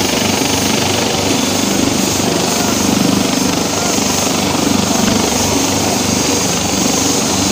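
Helicopter sitting on the ground with its turbines and main rotor running before lift-off: a loud, steady high whine over a rapid rhythmic chop of the blades.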